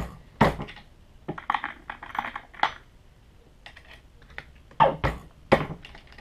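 Brass .44 Magnum cases clicking and clacking as they are slid into the shell holder of a single-stage reloading press, run up into the expander die to bell the case mouths, and set back into a plastic loading block. The clicks come in uneven clusters, with sharp louder knocks about half a second in and twice around five seconds.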